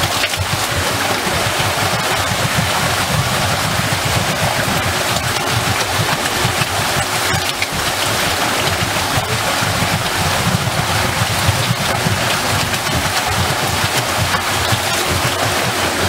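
Watermill: water pouring and splashing over a turning water wheel, a steady rushing with a churning low rumble underneath.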